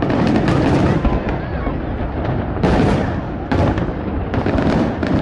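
Fireworks bursting overhead: a run of sharp booms, about five of them spaced a second or less apart, over a continuous crackle and rumble.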